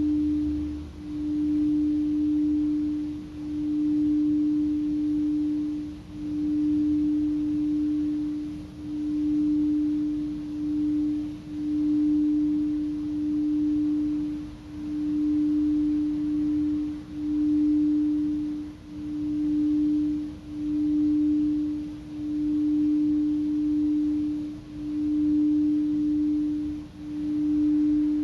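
Singing bowl being rimmed, holding one steady pure tone that swells and fades about every two seconds.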